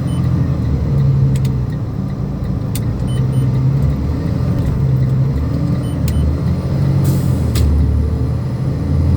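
Freightliner dump truck's diesel engine running steadily while driving, heard from inside the cab, with a few scattered clicks and a short hiss about seven seconds in.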